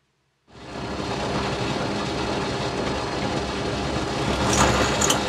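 Pillar drill running, its bit drilling out the plastic insert of a small metal flash-gun mounting bracket held in a drill vise. A steady motor hum starts about half a second in, with a few brief sharper sounds near the end.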